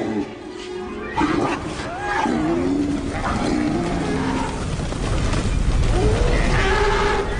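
Film sound of a stampeding hadrosaur herd. Repeated lowing, honking calls from the dinosaurs sound over a low rumble that builds from about halfway through.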